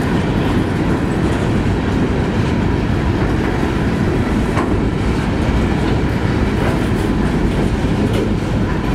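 Freight train of coal gondolas rolling past close by: a steady rumble of steel wheels on the rails, with a few faint clicks.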